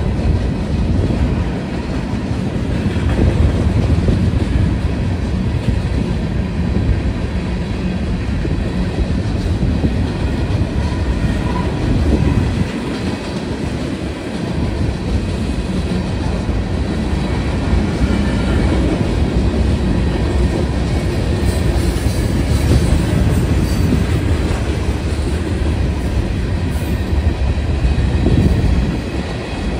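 Freight cars rolling past at a railroad grade crossing: a steady rumble and clatter of steel wheels on the rails.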